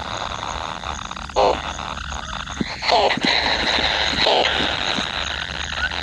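Kingfisher nestlings calling in their burrow nest: short calls repeated about every second and a half.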